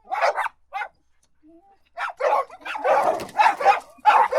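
Dog barking: a quick burst of barks, about a second's pause, then a fast, dense run of barks.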